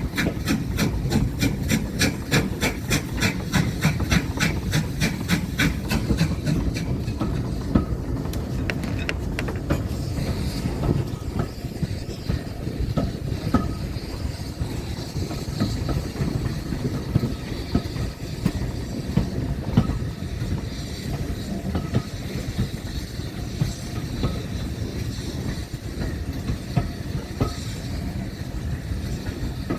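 Railway train running along the track, a steady low rumble with some hiss. A fast, regular ticking, about five beats a second, runs for the first six seconds or so and then fades out.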